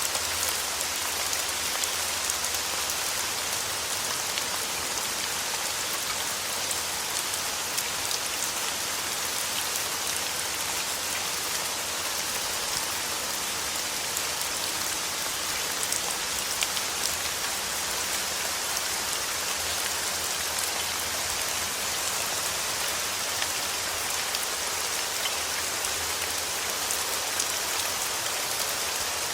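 Steady rain falling, an even hiss with many small scattered drop ticks and no change in level.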